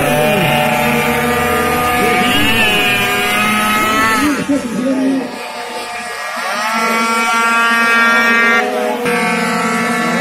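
Small two-stroke race motorcycles running hard on the circuit, their high-revving engines climbing in pitch through each gear, with a sudden drop in pitch about eight and a half seconds in before they pull up again.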